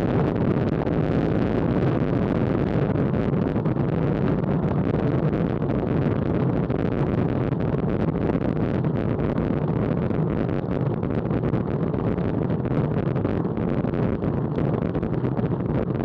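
Steady wind rush buffeting a Garmin VIRB action camera's microphone, mixed with road noise, on a road bike moving at about 23–25 mph.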